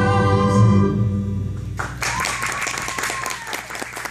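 Cast singing the held final note of a musical number, fading out about a second and a half in, followed by audience applause breaking out about two seconds in.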